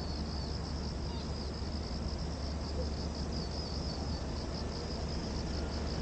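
Cicadas singing in a steady, high, slightly pulsing chorus over a low, steady rumble.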